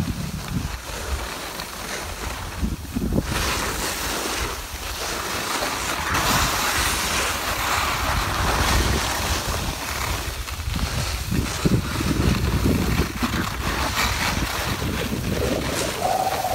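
Wind rushing and buffeting on a phone microphone while moving down a ski slope, over the steady hiss and scrape of sliding on packed snow. The hiss swells about three seconds in and again about six seconds in.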